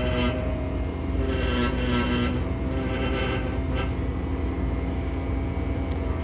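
Pneumatic air scribe buzzing steadily as its vibrating stylus chips rock matrix away from a fossil turtle shell, over a continuous low drone.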